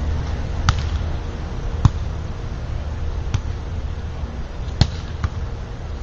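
A volleyball being struck during a beach volleyball rally: sharp smacks of hands and arms on the ball, five in about five seconds, over a steady low background rumble.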